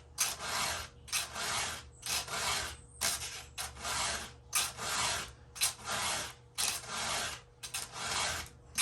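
Hand file rasping across the cutter teeth of a new chainsaw chain in steady, even strokes, about two a second, each stroke starting sharply with a short gap before the next.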